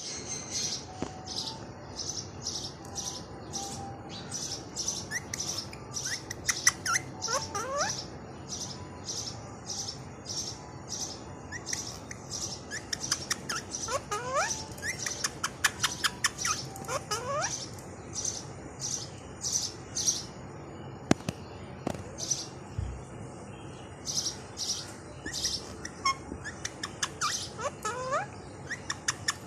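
Indian ringneck parrots chirping: a rapid string of short, high calls, two or three a second, with occasional quick rising notes mixed in.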